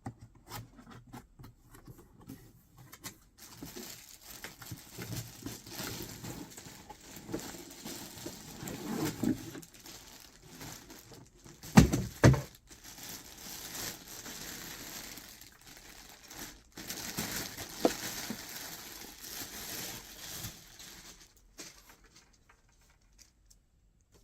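Irregular rustling and crinkling handling noises, with a pair of sharp knocks about twelve seconds in.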